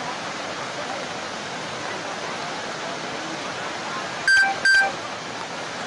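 Steady rush of fast-flowing floodwater, broken about four seconds in by two short, loud electronic beeps in quick succession.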